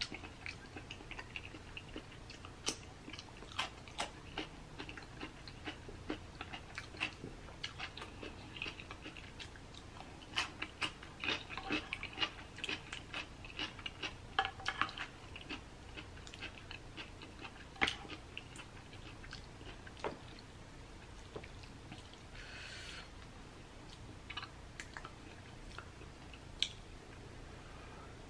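Close-miked chewing and wet mouth sounds of someone eating a seafood boil with rice. Short clicks come in irregular clusters and are busiest from about a third to halfway through.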